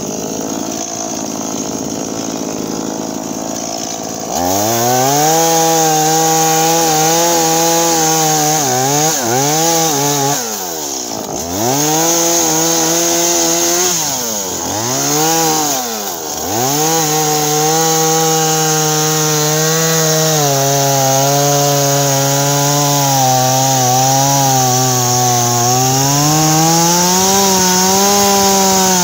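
Stihl MS170 two-stroke chainsaw throttled up about four seconds in and run at high revs while cutting a log. Its pitch sags and recovers a few times as the chain bites and eases off, holds lower under load for a long stretch, then climbs again near the end as the cut frees.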